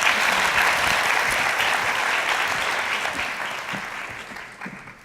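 Audience applauding at the end of a talk, the clapping dense at first and dying away over the last two seconds.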